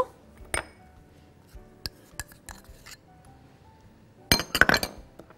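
Spoon clinking against a bowl while tahini is spooned into a yogurt and garlic sauce: a few light clinks, then a louder run of clinks about four and a half seconds in. Faint background music underneath.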